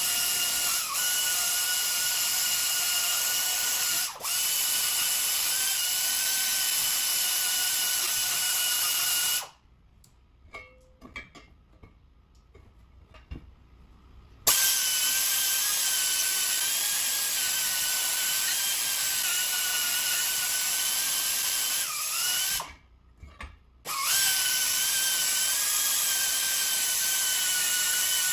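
Pneumatic die grinder running at a steady high whine as it ports the aluminium housing of a TVS twin-screw supercharger, the pitch dipping slightly as the bit bites. It stops for about five seconds near the middle and restarts, then cuts out again for about a second later on.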